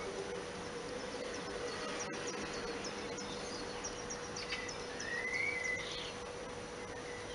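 Outdoor background of steady hiss and a low steady hum, with a run of short, high chirps at about three or four a second from about two to five seconds in, then one short call that rises and falls near the end.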